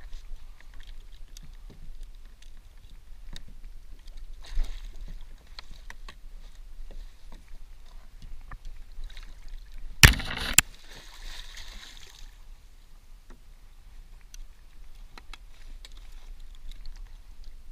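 Water sloshing against a kayak hull with small knocks and clicks of gear handling. About ten seconds in, a loud sudden splash followed by a brief wash of spray as a hooked halibut thrashes at the surface beside the kayak.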